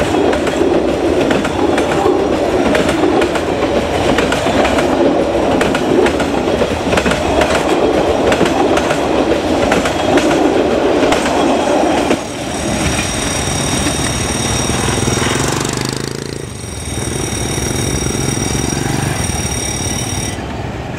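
Vietnam Railways passenger coaches rolling past close by, their wheels clattering and clicking on the track. About twelve seconds in, the clatter gives way to a quieter rumble with steady high-pitched whining tones, which cut off shortly before the end.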